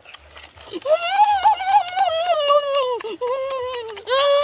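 A high-pitched voice making long drawn-out 'mmm' sounds of relish while eating, one wavering run starting about a second in and a second, steadier one after a short break near the end; faint clicks of chewing before it.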